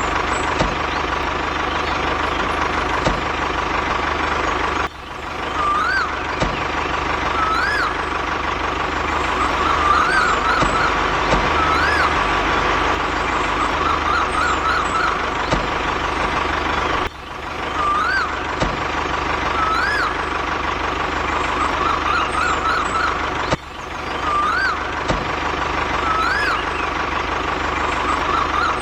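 A small motor running steadily with a constant whine, while short rising-and-falling chirps recur every couple of seconds. The sound breaks off sharply three times and picks up again.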